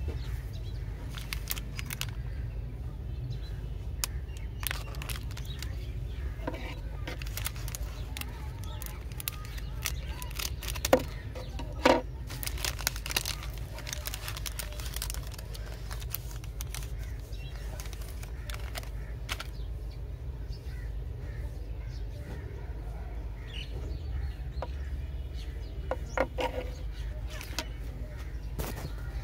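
Plastic wrapper of a chocolate wafer bar crinkling as it is handled and snipped open with scissors, in scattered short crackles and clicks, with two louder sharp clicks about halfway through. A steady low hum runs underneath, and crows caw a few times near the end.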